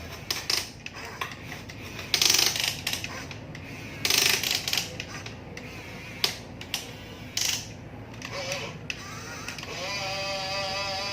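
Small radio-controlled construction toy working: irregular plastic clicking and clattering from its gears and mechanism, with a steady electric motor whine starting near the end.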